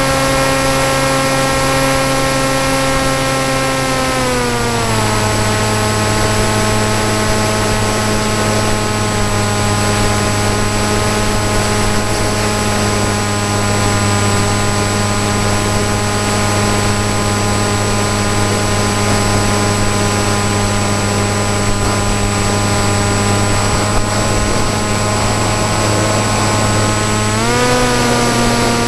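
Motor and propeller of a Nitroplanes PopWing RC plane running steadily over a hiss of air. The pitch drops as the motor slows about four seconds in, then rises again near the end as it speeds back up.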